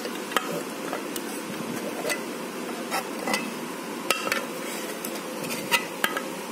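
Scattered metal clinks and knocks, about seven over a few seconds, as thick milk mixture is scraped and poured from a pan into a stainless steel mixie jar. A steady background hiss runs underneath.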